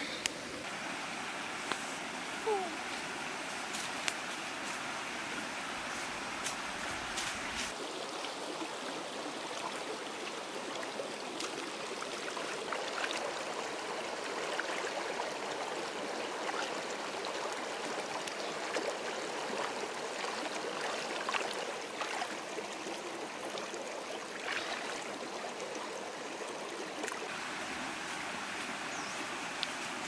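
Shallow rocky stream running steadily, a constant rushing water sound, with a few sharp clicks over it.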